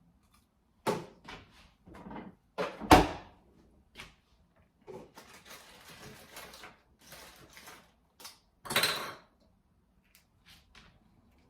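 Things being handled in a small room: several knocks and clunks, the loudest about three seconds in, light rustling in the middle, and a short scrape or rattle near the end.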